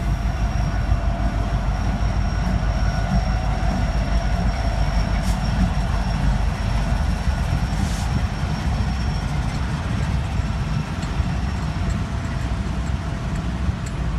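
Freight train passing close by: the diesel engines of Union Pacific SD70ACe 8943 and a second locomotive run as they go by, followed by autorack cars rolling, with a steady heavy rumble of wheels on the rails and a couple of sharp clicks.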